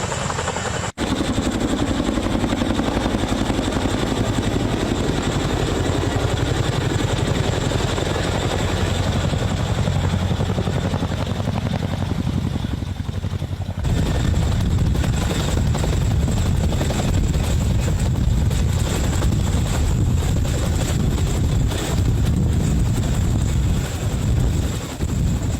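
Helicopter running, its rotor making a rapid, steady chop over a continuous engine noise with a high whine. It gets louder and choppier about halfway through.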